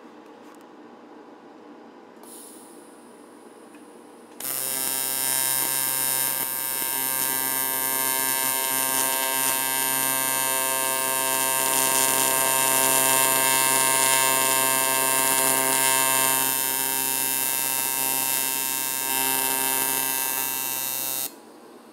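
AC TIG welding arc on cast aluminum, with filler rod being fed into a crack: a loud, steady electric buzz that strikes up about four seconds in and cuts off about a second before the end.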